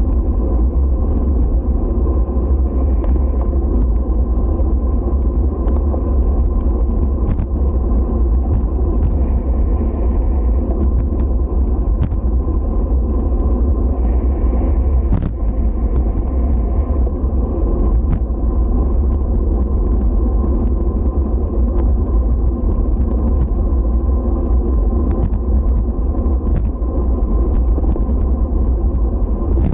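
Steady low road rumble of wheels rolling over pavement, with scattered sharp clicks every second or two.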